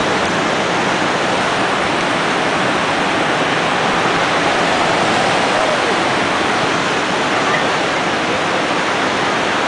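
Steady rush of whitewater on the Grande Ronde River, running high near flood stage.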